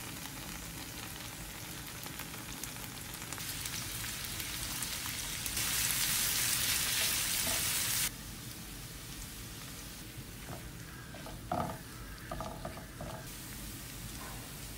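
Oil sizzling in a frying pan as sliced onions fry and are stirred, loudest for a couple of seconds around the middle and dropping sharply just after. A few light scrapes and clinks of a utensil against the pan come later.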